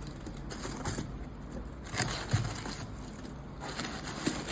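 Handling noises as the floor lamp's main column is picked up: faint rustling with a few light knocks, the clearest about two seconds in and near the end.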